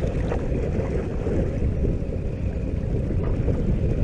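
Steady low rumble of wind buffeting the microphone on an open boat on the water, mixed with water and boat noise.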